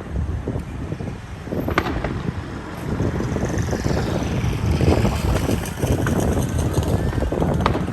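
Fireworks display: a few sharp bangs and, from about three seconds in, a crackling sizzle of bursting stars over a steady low rumble.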